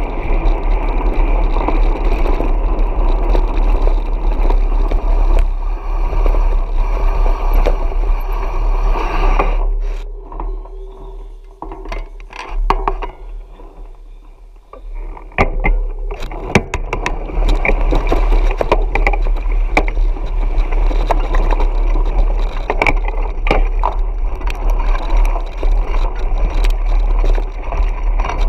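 Mountain bike riding over a gravel dirt track: knobby tyres crunching and the bike rattling and clicking over the rough surface, with a low wind rumble on the handlebar camera. It goes much quieter for a few seconds in the middle while the bike rolls slowly through a shallow stream, then the rattling resumes.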